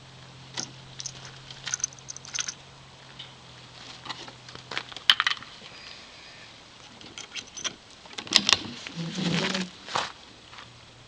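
Scattered light clicks and small rattles of handling, with a louder cluster and a brief rustle near the end, as the shooter gets ready to fire.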